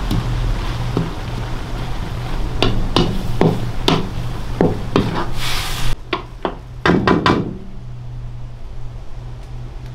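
A series of irregular knocks on wood over a steady low hum, the knocks stopping about three quarters of the way through.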